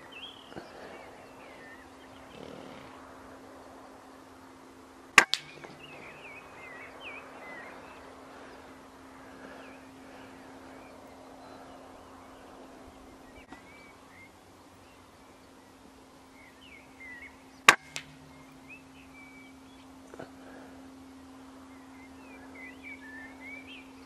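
Two shots from a moderated Walther Reign PCP air rifle, about twelve seconds apart. Each short crack is followed a fraction of a second later by a quieter smack of the pellet striking a rabbit. Birds chirp in the background throughout.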